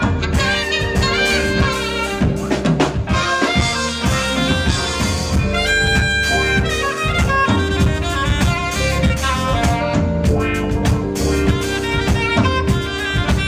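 Jazz saxophone playing a melody over a steady drum beat and bass, with a few long held notes near the middle.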